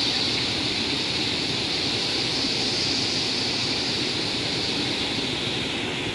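Steady rush of falling water from the cascades of Aliwagwag Falls, an even hiss with a low rumble beneath.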